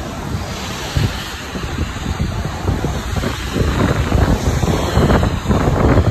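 Wind buffeting a phone microphone in the rain: a dense, gusty rumble that grows louder about halfway through.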